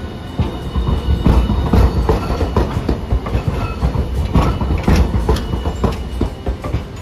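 Hiroden Green Mover LEX low-floor tram rolling past at close range, its wheels knocking again and again over the track switches and crossings above a low rumble. The knocking is heaviest from about a second in and eases off near the end as the tram moves away.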